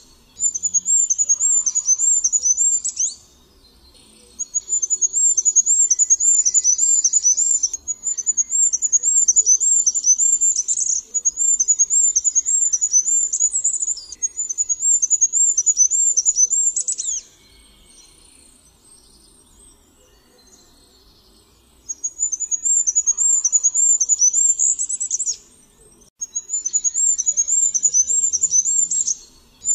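Goldcrest singing: bouts of about three seconds of very high, thin, rapidly repeated notes, each ending in a short flourish. The bouts follow each other closely, with one longer pause of about five seconds partway through.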